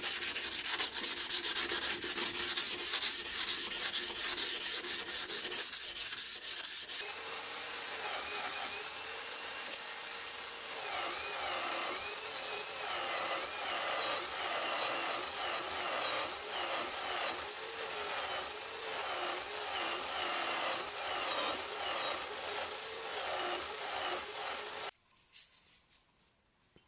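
Rapid hand-rubbing strokes of an abrasive pad on a rusty steel scissor blade. About seven seconds in, these give way to a power-driven buffing wheel polishing the blade. The wheel's whine dips and recovers again and again, then stops abruptly near the end.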